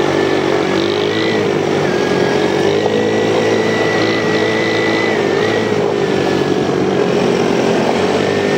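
ATV engine running steadily under way, its pitch wavering slightly up and down with small changes of throttle.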